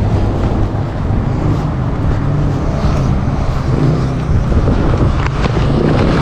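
An engine running steadily, a low continuous hum with noise over it.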